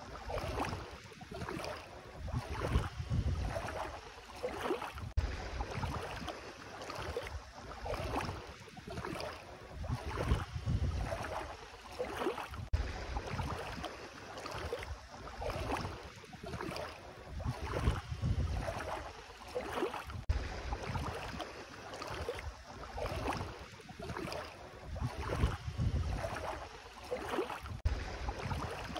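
Bare feet wading through ankle-deep seawater, a splash and slosh of water with each step, roughly one step a second.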